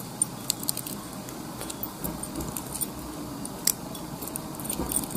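Close-up handling of a fish hook and fishing line: a low rustle with scattered small, sharp metallic clicks as the line is wound turn by turn around the hook shank.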